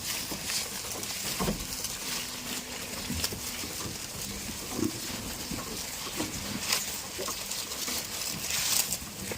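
Goats giving a few short, low grunts, with scattered knocks and rustling over a steady hiss.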